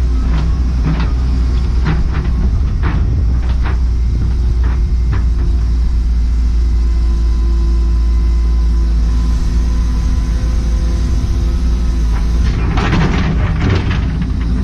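Cat 314E excavator's diesel engine running with a deep, steady rumble, with scattered sharp clanks and knocks and a steady whine in the middle; a quick cluster of knocks comes near the end.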